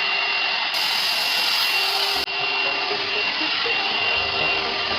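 Electric hot air brush (hair dryer brush) running, its fan motor blowing a steady rush of air with a thin high whine.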